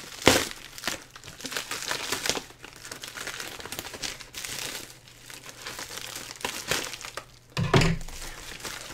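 White plastic mailer bag crinkling and rustling as it is cut open with scissors and pulled apart by hand, with a sharp snap about a third of a second in and a dull thump near the end.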